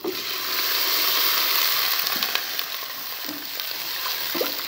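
Water poured into hot desi ghee with fried onions and garlic: a sudden loud sizzle that starts at once, swells over the first second or two, then eases to a steadier frying hiss, with a spoon stirring in the pot.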